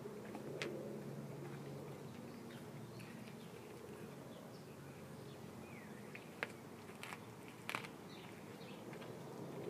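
Doberman gnawing a raw chicken quarter bone, with a few sharp cracks and crunches between quieter chewing. A low buzzing hum comes and goes underneath.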